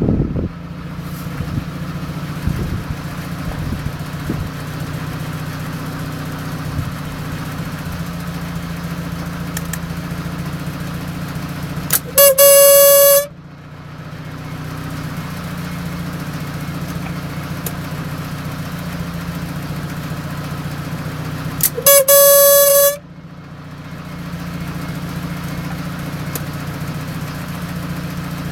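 FSE fuel pressure regulator on a Mazda FD3S RX-7 giving two loud, horn-like hoots about ten seconds apart, each lasting about a second, over a steady low hum. The owner wonders whether this strange noise is linked to the engine dying.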